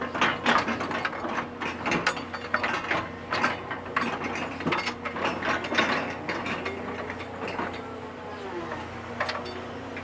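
Excavator running, its engine and hydraulics giving a steady hum, with rapid, irregular metal clanking and rattling that thins out over the last few seconds.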